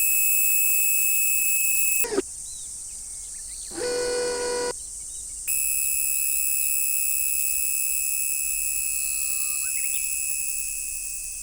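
Steady high electronic tones, broken off about two seconds in and back after a pause, with a short horn blast of about a second, about four seconds in, in the manner of a train horn.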